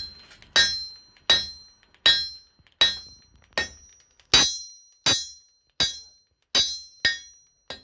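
Blacksmith's hand hammer striking a red-hot steel rod on an anvil, drawing it out, in a steady rhythm of about three blows every two seconds. Each blow gives a bright metallic ring.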